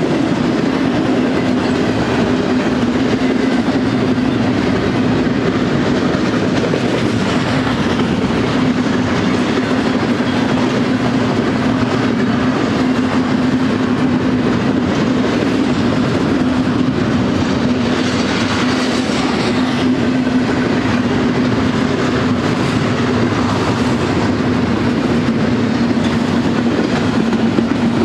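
Double-stack intermodal freight train's well cars rolling past at close range: a steady, loud noise of steel wheels running on the rails, with a constant low hum underneath.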